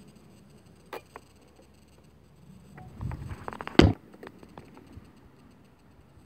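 Close-up handling noise at the microphone: a single click about a second in, then a run of rubbing and clicks about three seconds in, ending in one loud sharp knock just before four seconds. It fits the RC transmitter and its telescopic antenna being moved right against the camera.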